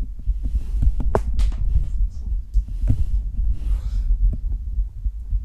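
Human heartbeat picked up by a microphone pressed against the chest: low, irregular thumping, with a few sharp knocks and rustles from the body moving as he goes up into a handstand.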